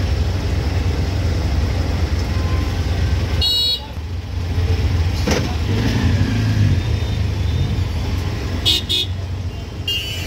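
Auto-rickshaw engine running with a steady low rumble in stop-and-go traffic, while vehicle horns honk: one short honk about a third of the way in and a few quick beeps near the end. A single sharp click comes about halfway through.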